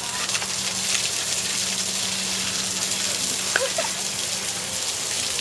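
Hose water spraying with a steady hiss and splashing onto an Asian elephant's head and trunk as she is showered. A low steady hum runs under it and stops near the end.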